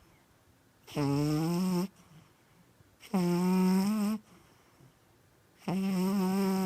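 Sleeping cat snoring: three pitched snores, each about a second long and rising slightly in pitch, coming about every two and a half seconds with quiet breathing gaps between.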